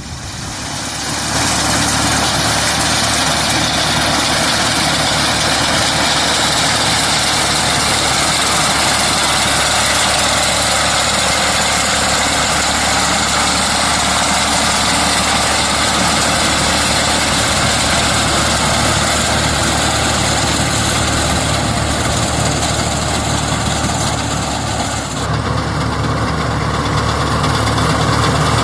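Tractor engine running steadily, a constant low drone under a dense hiss; about 25 seconds in the sound changes and the highest hiss drops away.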